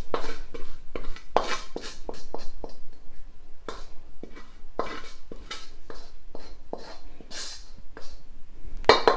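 Wooden spatula scraping and knocking inside a wok as fried rice is scraped out into a bowl: irregular knocks and scrapes, with a quick run of ringing taps near the end.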